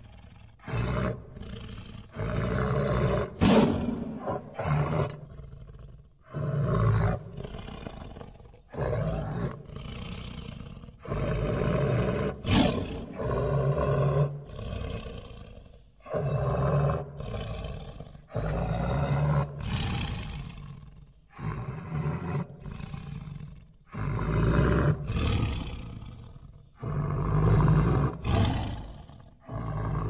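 Big cat roars, used as Smilodon sound effects: a run of loud roars a second or two long, coming every two to three seconds.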